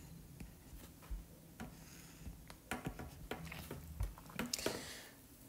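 Stylus tapping and sliding on a tablet's glass screen while drawing: a scatter of light clicks with a few brief scratchy strokes.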